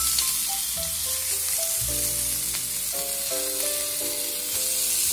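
Lamb chops sizzling steadily in a hot frying pan over high heat, with background music of held notes playing over it.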